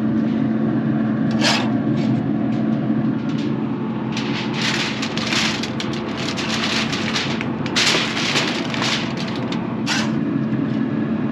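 Aluminum foil crinkling and rustling in a run of bursts as smoked tri-tip is laid on it, with a metal spatula scraping the smoker's grill grate about a second and a half in. A steady low hum runs underneath.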